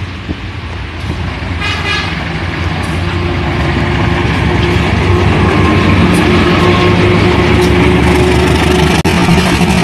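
CC204-class diesel-electric locomotive drawing near and passing close, its diesel engine running with a steady low drone that grows louder as it nears. A short horn blast sounds about two seconds in.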